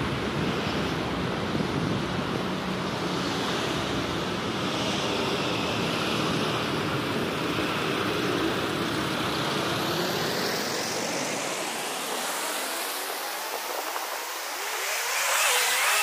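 Road traffic on a busy city street: cars and buses running past in a steady wash of noise. The low rumble drops away about three quarters of the way through.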